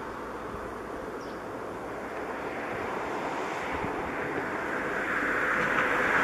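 Steady rushing noise of a distant engine, growing slowly louder.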